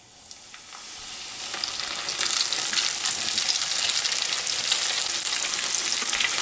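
A butterflied herring frying in hot oil in a pan. The sizzle swells over the first two seconds and then holds steady as a loud, dense crackle.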